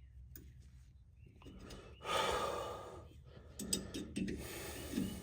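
A man's long, heavy sigh about two seconds in, then a few sharp clicks and more heavy breathing near the end.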